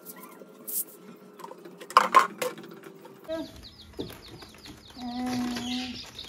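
Two sharp metallic clinks about two seconds in, then rapid high chirping from small birds, with one longer held call near the end.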